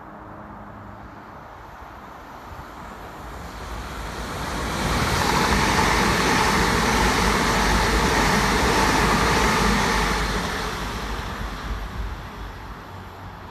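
Southern Class 377 Electrostar electric multiple unit passing at speed: the wheel and rail noise swells as it approaches, stays loud for about five seconds while it goes by, then fades as it draws away.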